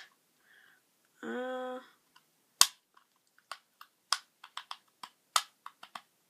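A plastic Rubik's cube being twisted by hand: a string of sharp, irregular clicks from its turning layers. Just before the clicks, a brief hummed note.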